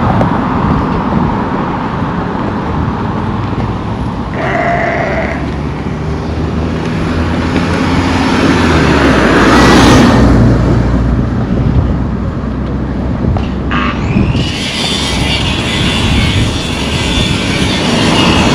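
Road traffic passing: vehicle engines and tyre noise, swelling loudest around ten seconds in. A brief higher tone sounds a little over four seconds in.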